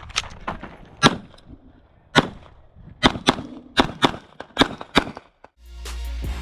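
9mm Glock 45 pistol firing about nine shots at an uneven pace, some in quick pairs, as in a practical shooting stage. Music with a heavy bass comes in near the end.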